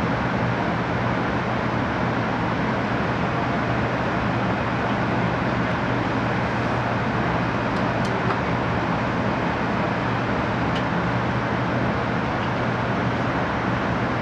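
Steady cabin noise inside an E5 series Shinkansen passenger car as the train moves slowly out of the station, an even rumble with a low hum and a few faint ticks.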